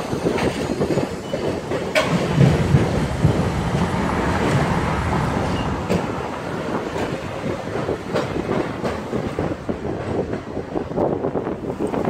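Road noise from a moving car with its window open: a steady rumble and hiss of tyres and passing traffic, with a few sharp knocks along the way.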